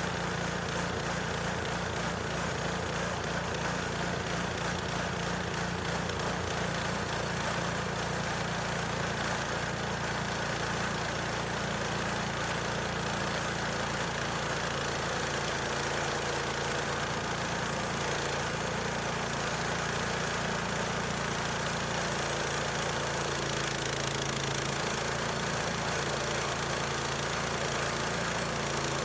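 Small gasoline engine of a portable band sawmill running steadily, its pitch shifting slightly a couple of times.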